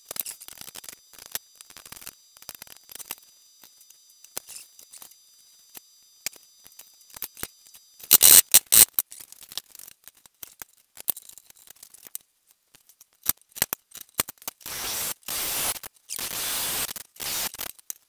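Thin scrap sheet metal being cut and worked by hand with tin snips: scattered light clicks and taps, a loud cluster of sharp snaps about eight seconds in, and a run of short scraping strokes in the last few seconds.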